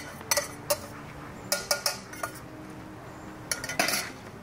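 Spoon and dishes clinking and knocking as food is handled: scattered short clinks, with a quick cluster of them in the middle and another near the end.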